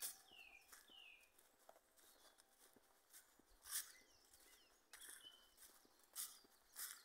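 Footsteps crunching in dry fallen leaves, quiet and irregular, with a few louder steps in the second half. Small birds call faintly in short, high, falling whistled notes.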